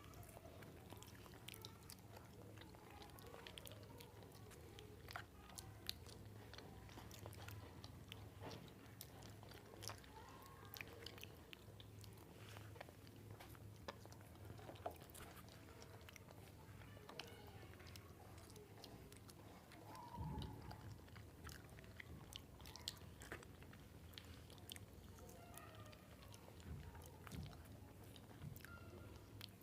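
People eating bananas fast: soft, wet chewing and biting with scattered mouth clicks and smacks, faint over a low steady hum.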